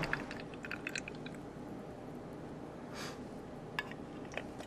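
Coloured water poured from a small plastic pyramid into a plastic cube, trickling and dripping for about the first second, then faint. A couple of light plastic clicks near the end.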